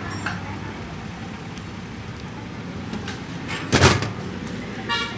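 Vehicle engine running steadily, with one loud noisy burst about four seconds in and a short horn toot about a second later.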